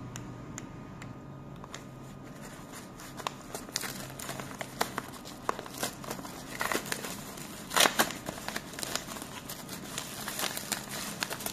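Yellow padded mailer and plastic bubble wrap crinkling and tearing as hands open the package. A run of sharp crackles starts about three seconds in and is loudest about two-thirds of the way through.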